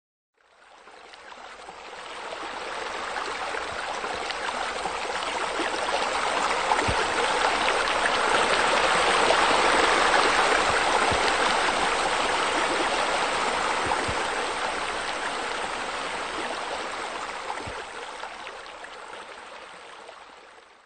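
Steady rush of falling, splashing water from a pool's spa spillover and water-feature walls. It fades in over the first few seconds, is loudest around the middle, and fades out near the end.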